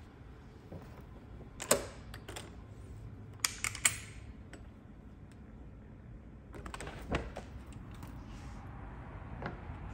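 Sharp clicks and knocks: one a little under two seconds in, a quick cluster near four seconds, then another cluster about seven seconds in as the door's handle and latch are worked and the door is pulled open.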